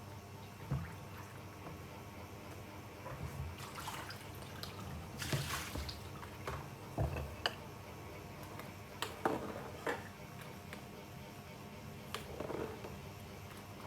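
Kitchen handling sounds: scattered knocks and clinks of cookware and utensils, with a short watery splash about five seconds in.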